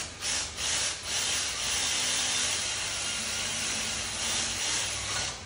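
Compressed air hissing from a blow gun: a few short puffs, then one steady blast of about four and a half seconds that cuts off suddenly.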